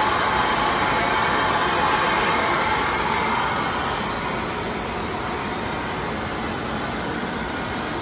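Inline PCB depaneling router running: a steady mechanical whir with a rush of air. It softens a little about halfway through.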